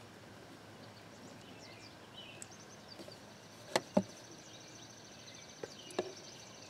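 Plastic quart bottle of gear oil knocking and clicking against a plastic funnel while the oil is poured. There are two sharp clicks close together about four seconds in and two more near the end; the pour itself is faint.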